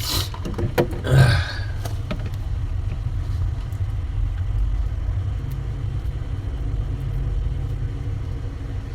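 A steady low rumble, with a few sharp clicks and a short rustle in the first two seconds.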